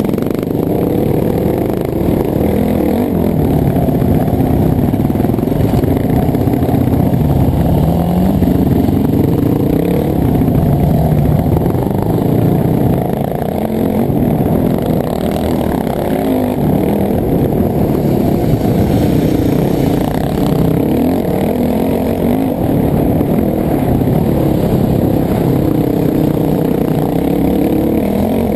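Off-road motorcycle (dirt bike) engine running hard, its pitch rising and falling again and again as the throttle opens and closes.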